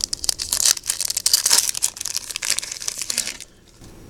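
Crinkling and crackling of foil Yu-Gi-Oh booster pack wrappers being handled, a dense run of small crackles that stops about three and a half seconds in.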